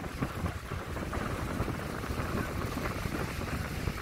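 Strong wind blowing across the microphone: a continuous, uneven low noise.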